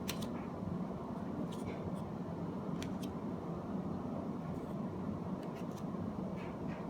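Pokémon trading cards and pack wrappers being handled: a few short clicks and rustles over a steady low hum.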